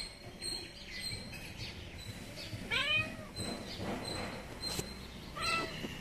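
Domestic cat meowing twice: a longer call that rises and falls about halfway through, then a shorter one near the end, with a few light taps in between.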